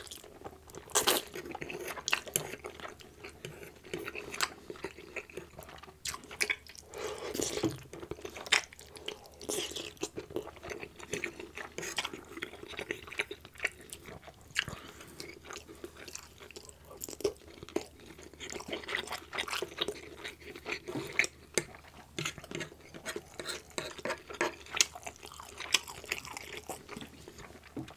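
Close-miked chewing of egg noodles and meatballs in gravy: wet mouth sounds with many short, sharp clicks throughout.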